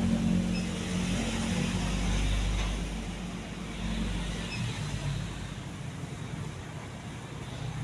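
Majestic Deluxe decorative ceiling fan running: a low steady motor hum under a rush of air from the blades, gradually getting quieter.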